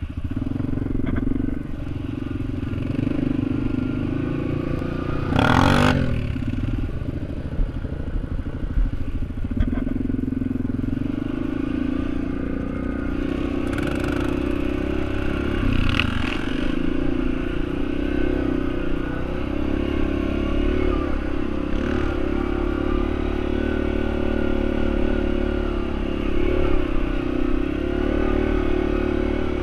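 Yamaha Raptor sport quad's single-cylinder four-stroke engine running steadily as it crawls over rock, with rattling from the machine. There is a brief loud burst of noise about five and a half seconds in, and two shorter ones later.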